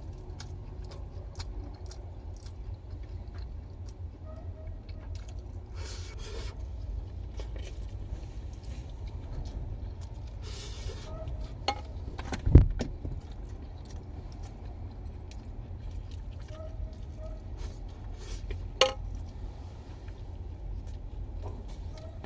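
Eating sounds: a spoon scraping a bowl, with small clicks and chewing, over a steady low rumble of wind against the camper. A single sharp knock comes about halfway through.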